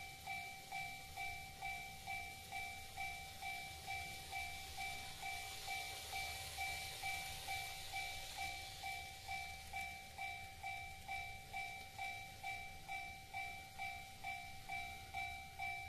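Model Japanese level-crossing warning bell ringing steadily with a two-tone ding about twice a second, sounding while the crossing lamps flash for an approaching train. Midway the faint running hiss of the N-gauge Micro Ace KTR001 Tango Explorer model train passing close by rises and fades under it.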